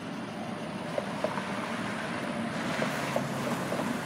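Road traffic passing close: a car and a pickup truck drive over the grade crossing, their engine and tyre noise swelling about halfway through.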